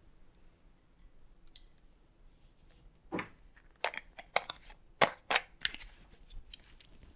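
A plastic bottle and its cap being handled over drinking glasses: a string of sharp clicks and crackles starting about three seconds in, the loudest about five seconds in.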